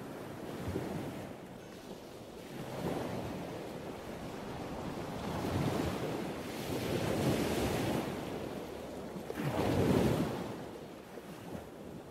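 Ocean surf washing onto a beach, the waves swelling and ebbing several times, the biggest near the end before it fades out.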